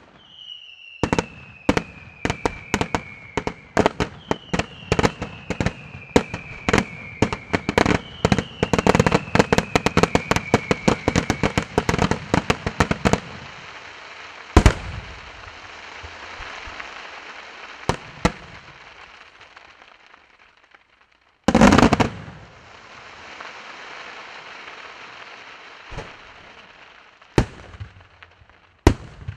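Aerial fireworks display. For the first dozen seconds comes a dense volley of rapid bangs, with three long whistles that fall in pitch. Then a steady hiss is broken by single shell bursts, the loudest and longest about three-quarters of the way through.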